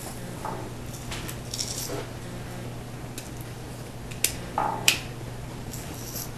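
Light clicks, taps and scrapes of small kitchen utensils and containers being handled while salt goes into a vinaigrette, with two sharper clicks about four and five seconds in, over a steady low hum.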